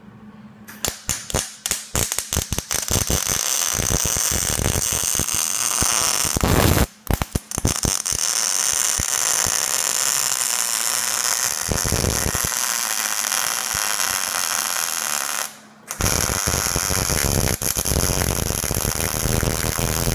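MIG welder arc crackling while welding a nut onto a broken exhaust manifold bolt to fill it with weld. The arc catches in short stuttering bursts about a second in, then runs steadily, stopping briefly twice.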